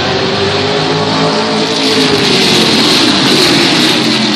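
A pack of pickup-style race trucks racing past together, their engines running in a dense overlapping din. It gets louder to a peak about three seconds in as the field goes by close, then begins to fade.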